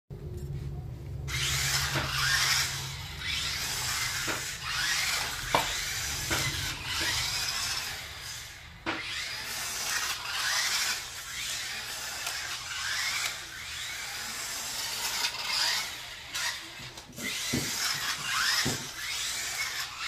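Double E 1/18 RC monster truck's dual small electric motors and gears whirring as it drives about on a hard floor, surging up and down with the throttle, with a few sharp knocks. The whirring starts about a second in.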